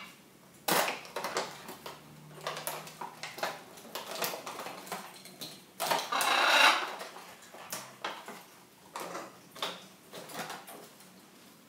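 A toy's blister pack and cardboard backing being handled and pried open: irregular plastic crinkles, clicks and tearing, with a longer rustle about six seconds in.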